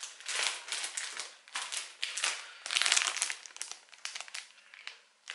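Clear cellophane plastic sleeve around large sticker decals crinkling in irregular bursts as it is handled, dying down near the end.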